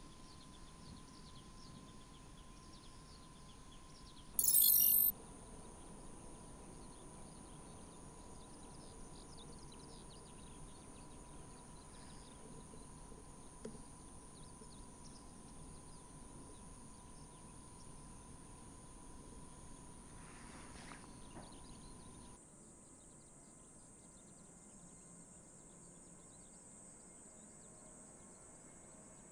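Quiet outdoor ambience of small birds chirping and insects, with one short, loud, high-pitched sound about four seconds in. About 22 seconds in, the background drops abruptly to a quieter hush.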